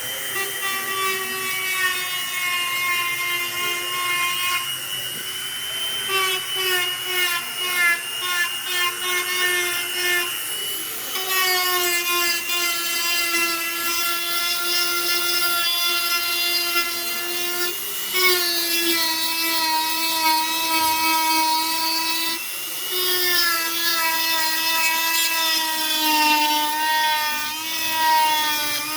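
A small electric power tool running with a steady whine, working wood; its pitch dips and shifts slightly several times as the load changes, with a fast rattling texture for a few seconds early on.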